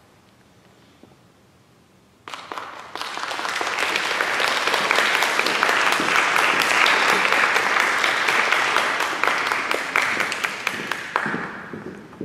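A brief hush, then audience applause breaks out about two seconds in, swells to a steady level, and thins out near the end.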